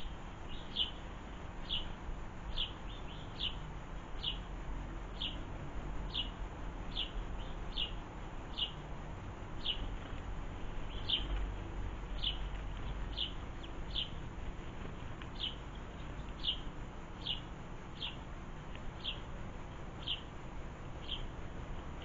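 House sparrow chirping: one short cheep repeated steadily about once a second, now and then doubled.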